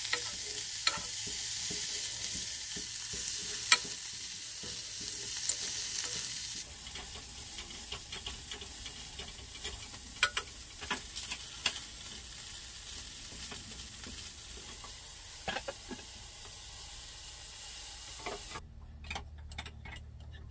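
Diced carrots, onions and garlic sizzling as they sauté in a saucepan, stirred with a wooden spoon that scrapes and clicks against the pan. The sizzle drops abruptly about a third of the way in and again near the end.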